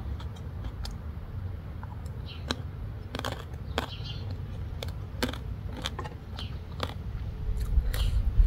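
A person chewing a mouthful of green papaya salad close to the microphone, with irregular crisp crunches over a steady low rumble.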